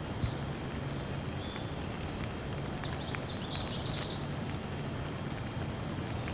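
Steady rainfall with a songbird chirping over it, including a quick run of rapid high chirps about three seconds in.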